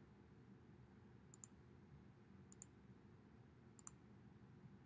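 Faint computer mouse button clicks: three press-and-release pairs, a little over a second apart, over quiet room tone.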